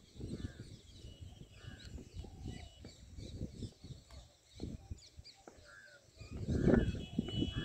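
Birds chirping and calling over irregular gusts of wind buffeting the microphone, with the strongest gust near the end.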